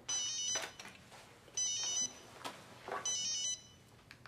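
An electronic alarm beeping: three short bursts of rapidly warbling high beeps, about one and a half seconds apart.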